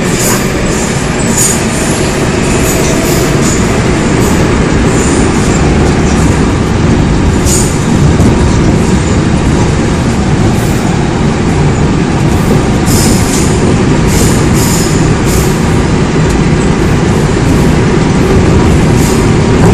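Seoul Metro Line 4 4000-series electric train with Mitsubishi GTO VVVF traction running between stations, heard from inside a car: a steady heavy rumble of wheels and running gear, with short hissing squeals high up at intervals.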